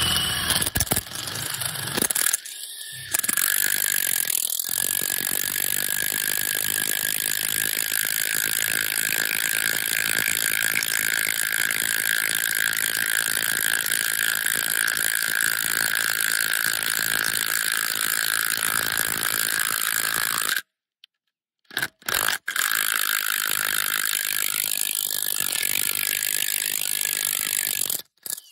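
A power tool running steadily with a constant whine and fast clicking. It cuts out for about two seconds around twenty seconds in, then starts again and runs until near the end.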